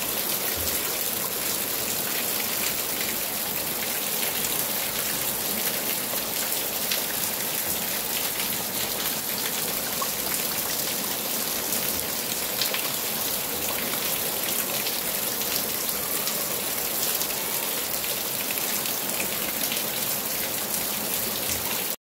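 Heavy rain falling steadily on standing floodwater: a dense, even hiss of countless drop impacts. It cuts off suddenly near the end.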